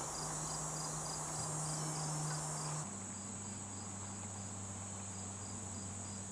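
High, steady insect chirping, with small regular pips, over a low steady hum that changes pitch about three seconds in.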